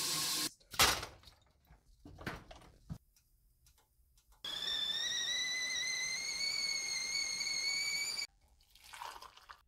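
Stovetop whistling kettle whistling at the boil for about four seconds, its shrill tone rising slightly in pitch over a hiss of steam, then cutting off suddenly. Before it, a tap runs briefly and there is a sharp knock about a second in.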